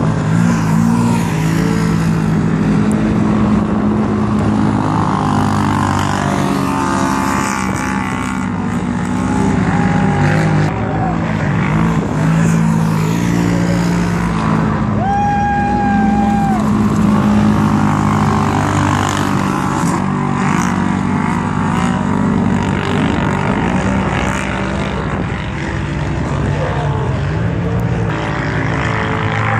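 Several side-by-side UTVs, Polaris RZR and Yamaha Viking types, racing around a dirt oval. Their engine notes rise and fall as the cars pass and work through the turns.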